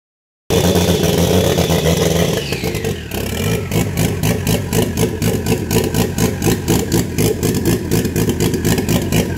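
Toyota 1JZ-GTE VVT-i 2.5-litre turbocharged straight-six running on the floor out of the car: held at raised revs at first, the pitch falls back a couple of seconds in, and it then runs at idle with an even, regular pulse.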